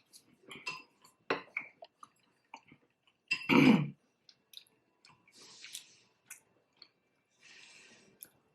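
Close-miked mouth sounds of someone eating: soft wet chewing clicks and breaths, with one louder short throat-clearing sound about three and a half seconds in.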